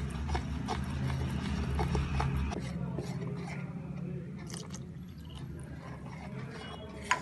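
Cake batter being stirred in a mixing bowl as milk is added: wet squelching with light clicks and scrapes of the utensil against the bowl. A low steady hum underneath stops about two and a half seconds in.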